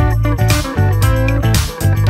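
Upbeat background music led by plucked guitar over a steady bass beat.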